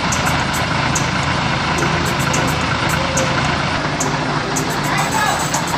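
Fire engine's engine running at idle, a steady drone.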